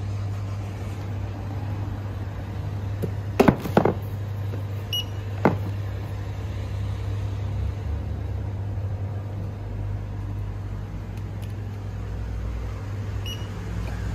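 Steady low hum of a shop interior, with a few short clicks and knocks about three and a half and five and a half seconds in as packets are handled at the counter.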